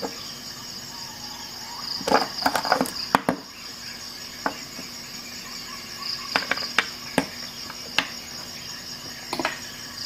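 Crickets chirping in a steady, pulsing high trill, with a scattering of sharp clicks and knocks over it, the loudest cluster about two to three seconds in.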